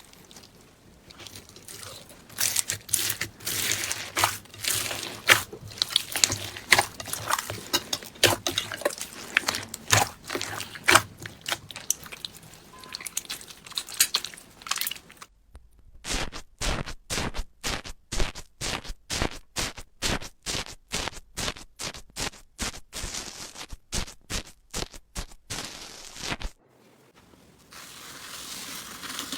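Slime being handled and squeezed, giving a dense run of crackling, crunchy clicks and pops. After a brief drop to silence about halfway through, it becomes a steadier run of sharp clicks. A soft hiss follows near the end.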